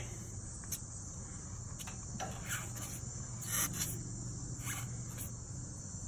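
Steady high-pitched chirring of insects, with a few faint clicks and scrapes as the gas valve's control knob is turned by hand; the clearest comes about three and a half seconds in.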